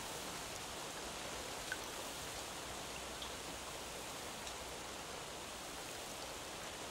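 Steady light rain, an even hiss with a few faint drop ticks now and then.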